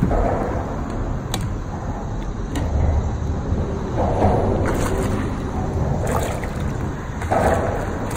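River water lapping and sloshing against the side of a kayak, swelling three times, over a steady low rumble, with a few faint clicks.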